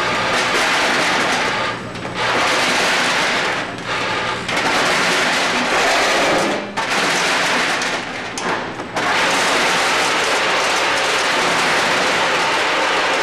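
Tridyne F-206 packaging machine with its linear weigher running: a dense steady clatter of dog bones rattling through the stainless-steel feed pans and weigh buckets, over a low steady hum. The clatter drops back briefly about four times.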